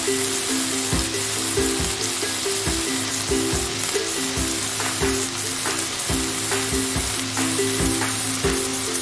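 Chicken pieces sizzling on a grill grate, a steady hiss of fat and juices. Background music with a steady beat and a repeating melody plays along with it.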